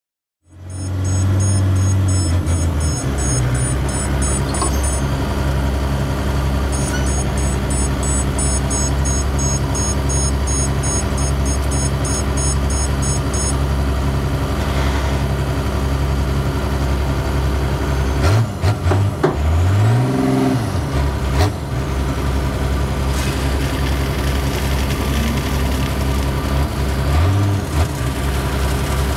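Heavy construction machine's engine running steadily, revving up and down a few times later on. A high pulsing alarm beeps in two stretches during the first half.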